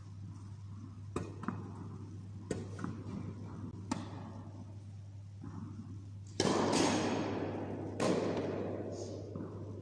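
Tennis balls bouncing and being struck in an indoor tennis hall: a few sharp knocks in the first four seconds, then two loud impacts with a long echoing decay, about a second and a half apart, over a steady low hum.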